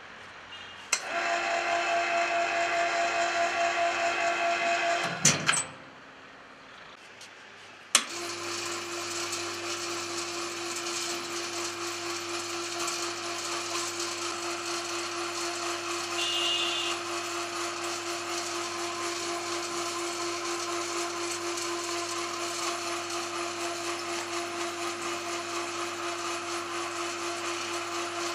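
Electric wire-rope winch motor of a mini roof crane running with a steady hum. It stops about five seconds in with a few sharp clacks, then starts again with a click about eight seconds in and runs steadily.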